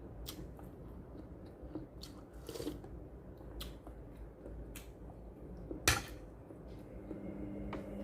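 Close-up mukbang eating sounds: chewing and biting with scattered small clicks and smacks, and one sharper click about six seconds in.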